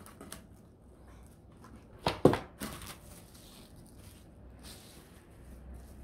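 Plastic cling wrap crinkling and rustling as it is pulled from its box and pressed over a plate, with two sharp cracks about two seconds in, the loudest sound, as the film is torn off.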